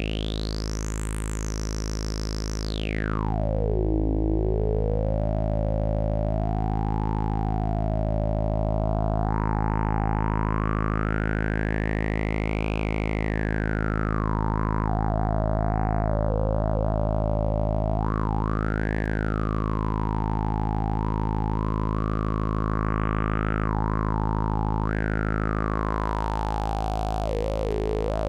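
AnalogFX SER-2020 analog synthesizer holding a low droning note while its resonant filter is swept by hand: the filter peak shoots up high and drops back low in the first few seconds, then wanders slowly up and down through the middle range.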